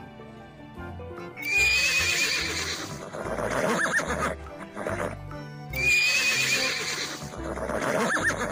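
Horse neighing twice, the same whinny heard about four seconds apart, each opening with a high wavering squeal, over background music.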